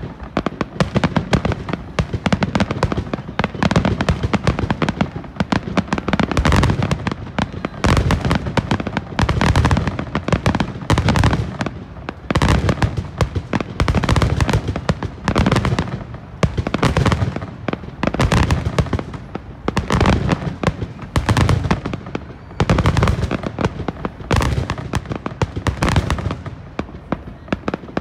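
Aerial fireworks finale: a continuous barrage of shell bursts and crackle, coming in loud volleys about every second. It thins out and fades over the last couple of seconds.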